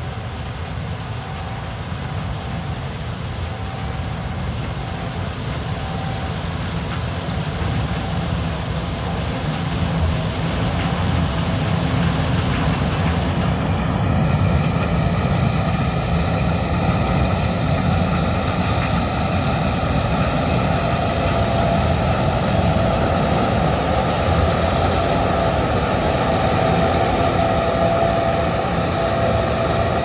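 Gleaner R62 combine harvesting soybeans, its engine and threshing machinery running steadily with a deep hum and a faint steady whine. It grows louder over the first half as it comes close, then stays loud as it passes nearby.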